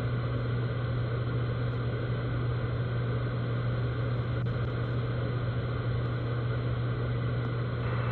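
Steady hiss of FM radio static with a constant low hum, from a software-defined radio receiver's audio.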